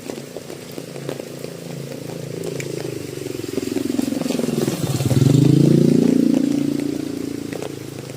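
A motorcycle passes by, its engine growing louder to a peak about five seconds in and then fading, while rain drips and patters throughout.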